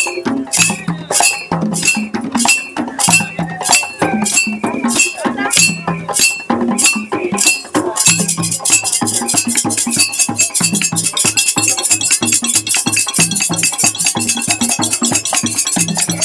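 Live West African hand drumming, a steady beat of about two or three strokes a second. About halfway through it breaks into a faster, denser rhythm.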